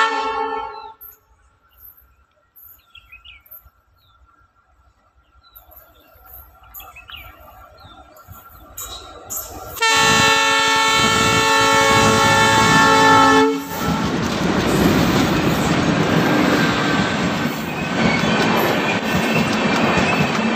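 A WDM3D diesel locomotive's horn cuts off at the start, then quiet with a few faint chirps while the diesel's rumble slowly grows. About ten seconds in the horn sounds loud and long, several notes at once, for about three and a half seconds, then the steady rumble and clatter of the train's coaches rolling past close by.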